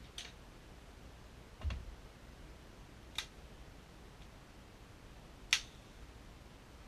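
Four sharp single clicks, a second and a half to two seconds apart. The second one comes with a low knock.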